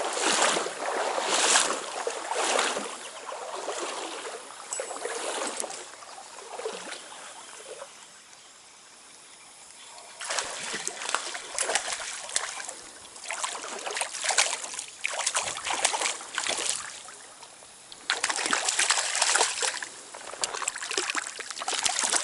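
Stream water splashing and trickling in irregular bursts, with a quieter lull of a few seconds before the middle.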